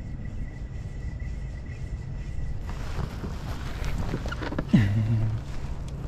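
Wind buffeting the microphone, a steady low rumble. About three quarters of the way through comes a sharp knock, then a short low hum that drops in pitch and holds briefly.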